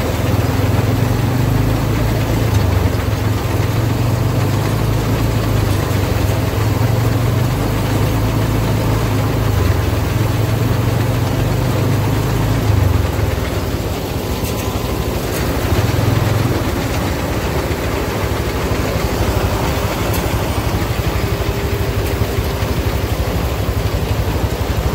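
An engine running steadily with a low hum. The hum drops away about halfway through, comes back briefly, then stays fainter.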